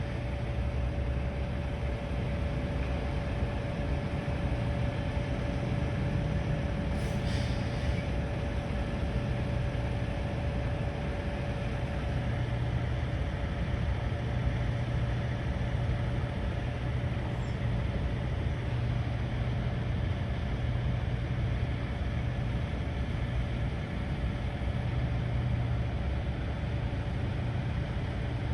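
Engines idling at a standstill: a steady low rumble with a constant hum above it that doesn't change.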